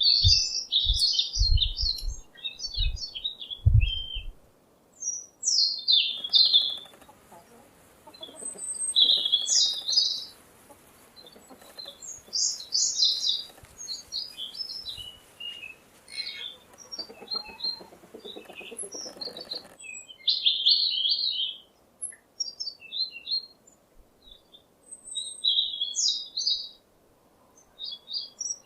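Small songbirds chirping and twittering in quick bursts of short, high notes that come and go throughout, with a few low thumps in the first four seconds.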